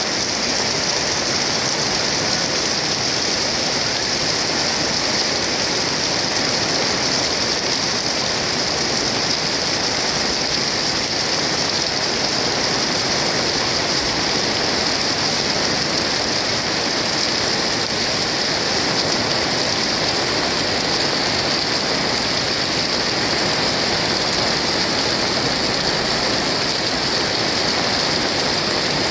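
Heavy rain falling as a loud, steady hiss that does not let up.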